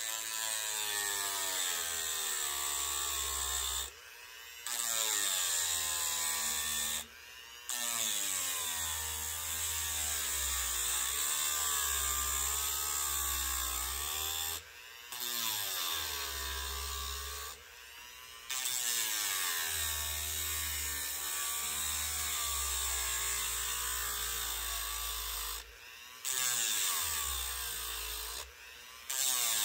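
Dremel rotary tool with a sanding bit running at high speed and grinding into a balsa-wood crankbait body, hollowing out a hole for the lead weight. The motor's whine wavers in pitch as it bears on the wood, and it stops for a moment about six times.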